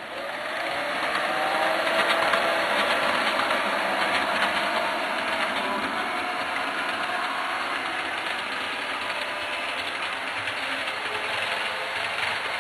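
Model train running on the layout track: a steady electric motor whine with wheels rolling on the rails, rising in pitch over the first couple of seconds as the train gets under way.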